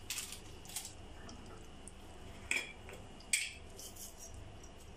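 Light clinks of metal kitchen utensils, four short taps spread over a few seconds, over faint steady room noise.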